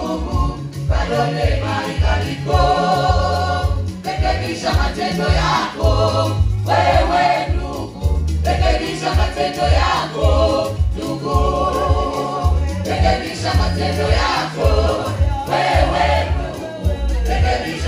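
Women's gospel choir singing through microphones, with keyboard accompaniment and a heavy, pulsing bass line.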